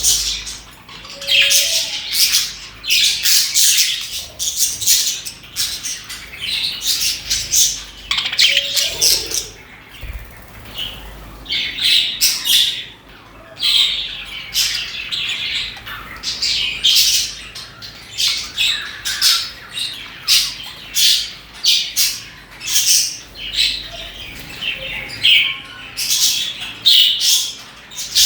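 A flock of budgerigars chirping and chattering, many short high calls and squawks overlapping, with brief lulls.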